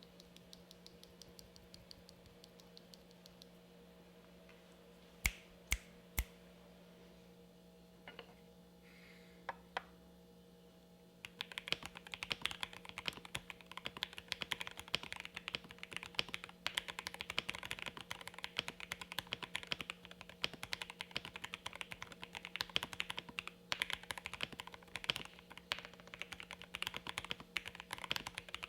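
Mechanical keyboard typing on a Jelly Epoch gasket-mount board with a polycarbonate plate, lubed Lavender linear switches and GMK keycaps: a few isolated key clicks, then from about eleven seconds in steady, fast continuous typing.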